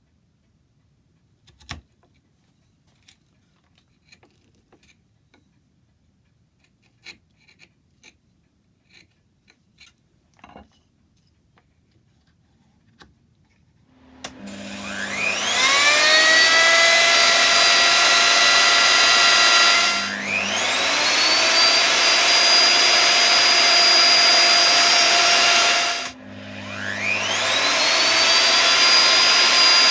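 A few light taps and knocks, then about halfway through a power tool's electric motor starts, its whine rising quickly to a steady speed. It is switched off and spun up again twice.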